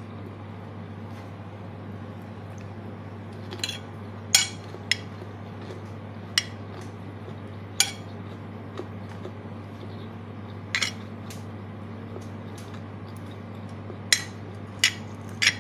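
Metal spoon and fork clinking and scraping against a plate while eating rice, as scattered sharp clinks a second or more apart. A steady low hum sits underneath.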